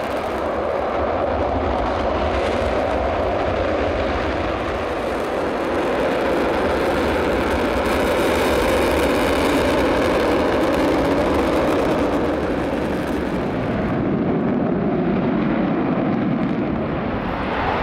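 Twin RB199 turbofan engines of a Panavia Tornado running steadily at taxi power, a continuous jet noise that neither spools up nor dies away.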